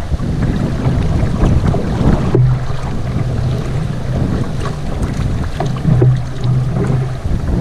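Rushing water of a small river rapid around a canoe hull, with paddle strokes splashing in it. Wind buffets the microphone.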